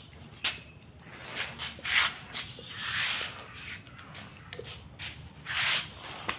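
A pit bull on a metal chain moving about on a concrete floor: short scraping and rustling noises from the chain and the dog, with a few sharp clicks.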